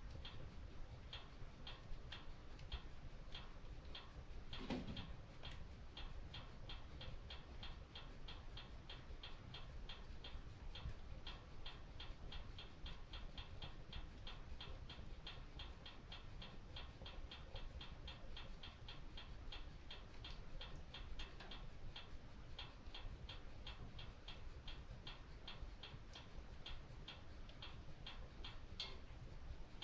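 Fireplace fire crackling: a quick, irregular run of small sharp crackles over a low steady rumble, with one louder pop about five seconds in.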